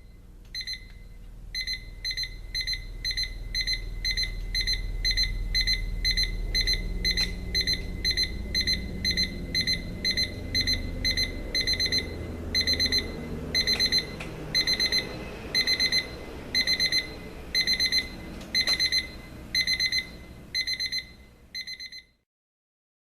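Elgin 3451E digital alarm clock's alarm beeping: a high electronic beep, at first single beeps about twice a second, then groups of quick beeps about once a second. It cuts off suddenly near the end.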